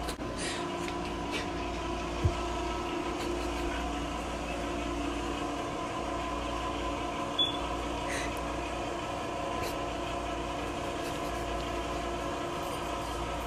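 A steady mechanical hum with a few constant tones over a low rumble, broken by two brief clicks, about two seconds in and about seven seconds in.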